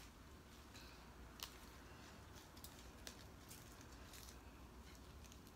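Near silence with faint rustling and a few short, soft clicks as fresh herb sprigs and lettuce leaves are picked and folded by hand.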